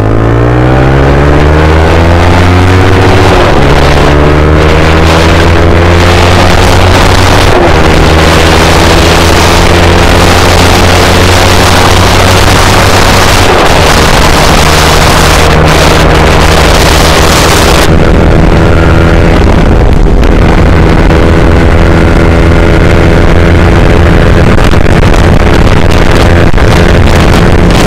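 Motorcycle engine pulling away and accelerating, its pitch climbing and dropping back at three gear changes before running steadily at speed. Heavy wind noise buffets the rider's microphone.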